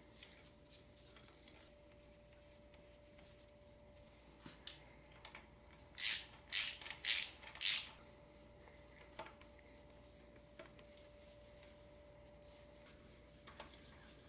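Hand ratchet wrench snugging the crankcase bolts of a Subaru EJ22T engine block: a few faint clicks, then four quick bursts of ratchet clicking around the middle.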